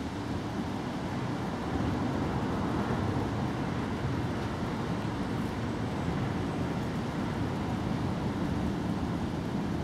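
Steady low rumbling background noise with no distinct events, slightly louder after about two seconds in.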